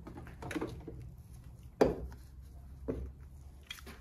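Heavy metal vise parts and tools handled on a workbench: a sharp clank about two seconds in, a smaller knock about a second later, and light rattling of tools around them.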